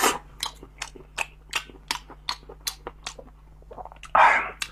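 Close-miked eating of spicy snails: wet mouth smacks and chewing clicks, about three a second, with a longer, louder wet sucking noise about four seconds in.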